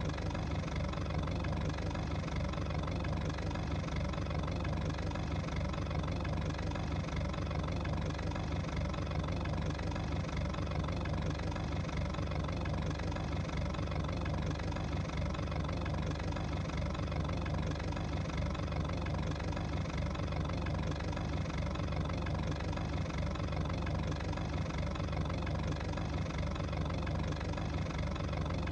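A steady engine hum like an idling motor, holding one even pitch with no revving or change.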